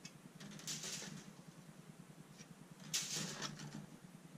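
Plastic parts sprues from a Walthers bascule bridge kit rattling and scraping against one another and the cardboard box as they are handled and lifted out. It comes in two short bursts, about half a second in and again about three seconds in, over a faint steady hum.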